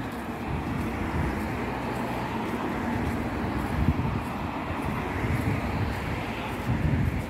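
Street traffic ambience: cars passing on the road, with wind rumbling on the microphone. The sound is a steady noise that swells and fades slightly.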